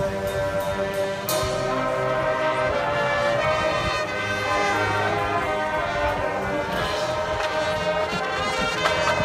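Drum and bugle corps brass line playing sustained chords over the front ensemble's mallet percussion, with a sharp percussive accent about a second in. The music grows slightly louder toward the end.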